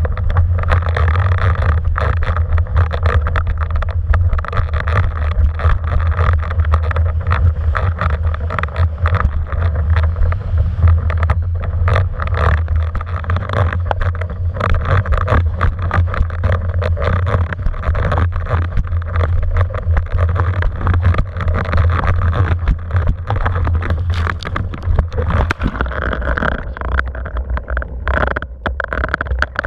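Wind buffeting the microphone of an action camera mounted on a windsurf rig, with water rushing and spraying as the board planes over choppy sea. The sound is a steady heavy rumble with constant rough crackles.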